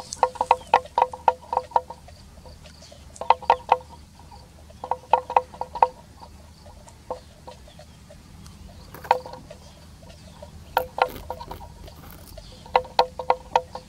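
Water buffalo grazing, tearing and cropping dry grass in short runs of quick, crisp rips, with gaps of a second or two between runs.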